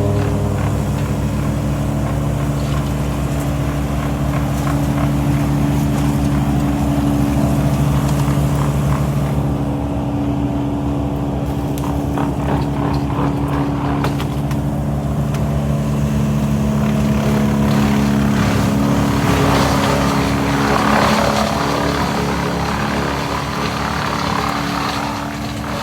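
Stihl chainsaw's two-stroke engine running steadily at high speed, getting harsher and noisier for a few seconds about twenty seconds in.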